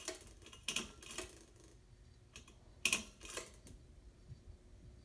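52-inch Hampton Bay Hugger ceiling fan running on medium speed, with a series of irregular sharp clicks in the first few seconds and a faint steady hum after them; the fan is a bit noisy.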